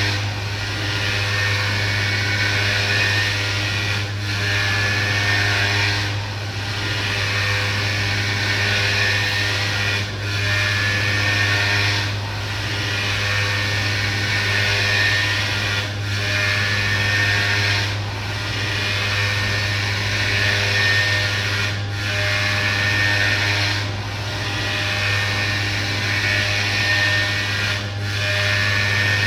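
CNC milling machine cutting a prosthetic, its spindle running with a steady low hum while the cutting noise swells and eases about every two seconds as the tool makes its passes.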